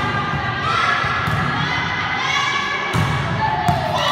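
Crowd of many high voices shouting and cheering at once in a large echoing sports hall, with a few sharp thuds, about three in all.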